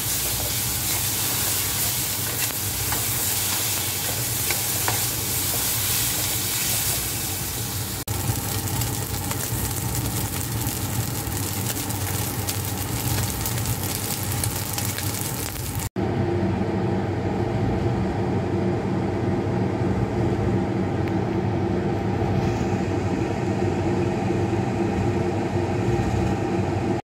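Pork, celery and tofu strips sizzling in a hot wok as a wooden spatula stirs and scrapes them: a dense steady hiss with small clicks. About halfway through it cuts off abruptly, and a steadier, lower hum takes over with little of the hiss.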